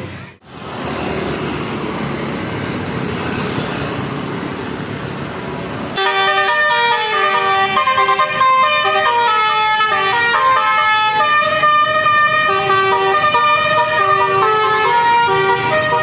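A Basuri telolet horn, a multi-tone set of electric horns, starts about six seconds in and plays a melody of held notes stepping from pitch to pitch, louder than the steady noisy rumble before it.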